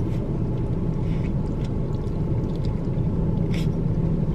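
Steady low rumble of an idling vehicle engine, heard inside a car cabin, with a brief slurp of a sip from a coffee cup about three and a half seconds in.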